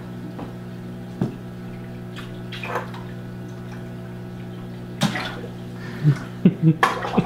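Water splashing at the surface of a large aquarium as bait fish are dropped in and bass strike at the top: one splash right at the start, more around three and five seconds in, and a quick run of small splashes near the end. A steady low hum runs underneath.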